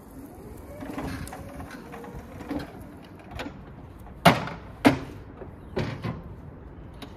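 Jungheinrich ERC 214 electric pallet stacker moving under its own drive, then a series of sharp clunks a little past halfway, the two loudest about half a second apart, as the machine is handled at a standstill.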